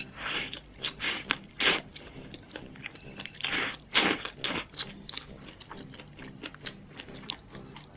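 Slurping up mouthfuls of sauced noodles, then chewing. Loud slurps come near the start and again around four seconds in, with smaller wet clicks and smacks between.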